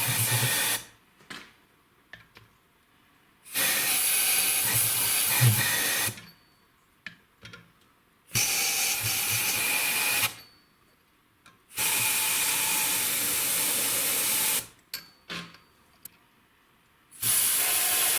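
Compressed air hissing from a blow gun in repeated bursts of about two to three seconds each, with small clicks in the gaps between them.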